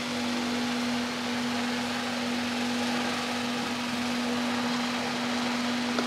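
Steady mechanical hum with one constant low tone and an even hiss over it, from a running motor.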